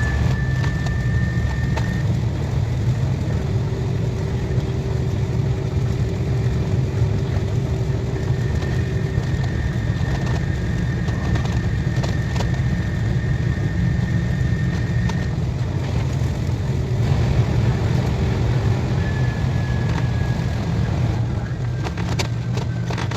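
KTX high-speed train running at speed: a steady, loud low rumble with thin whining tones that come and go.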